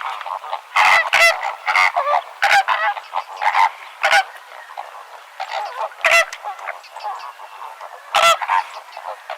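A flock of flamingos calling: many short, nasal, goose-like honks overlap and come irregularly, with the loudest calls about a second in, around six seconds in and just after eight seconds.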